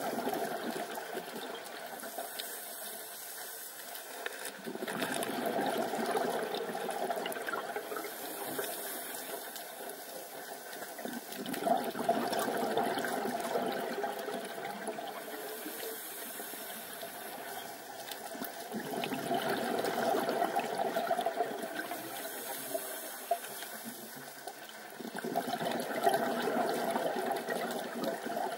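Scuba diver breathing through a regulator underwater: a thin hiss on each breath in, then a swell of bubbling exhaust on each breath out, about every seven seconds, four breaths in all.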